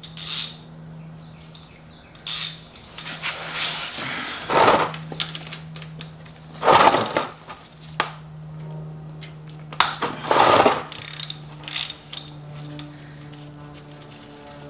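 Hand tools clinking and scraping against a motorcycle engine's underside, with three louder rasping bursts, each half a second to a second long, a few seconds apart, over a steady low hum.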